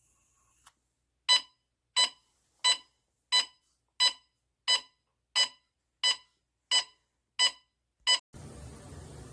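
Gas detector alarm beeping: eleven short, high-pitched beeps at an even pace of about three every two seconds, sounding for detected gas. The beeping stops near the end and a steady hiss starts abruptly.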